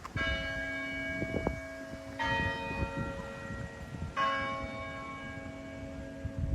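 Tower chime bells, Cornell's McGraw Tower chimes, striking three notes about two seconds apart, each left ringing on under the next.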